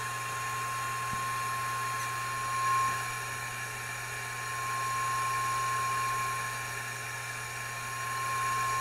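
Carlson Super Probe signal tracer's speaker sounding the steady 1 kHz test tone it picks up from a transistor in the equalizer, over hiss and a low hum. The tone swells and eases a few times as the probe moves about, showing the signal is reaching that transistor.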